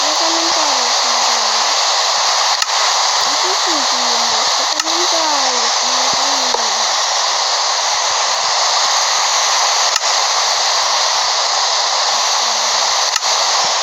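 Loud, steady rushing hiss with no change, like a hair dryer or fan, with faint voices underneath in the first half and near the end.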